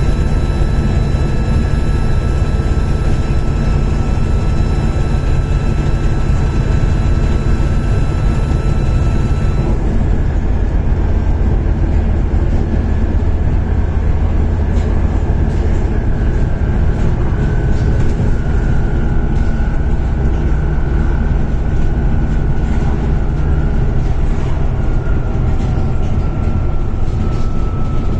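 Volvo B7TL bus's turbocharged diesel engine running hard under load, with a steady turbo whine over a heavy engine rumble. The higher whine tones cut off about ten seconds in, leaving a lower whine that wavers in pitch for the rest.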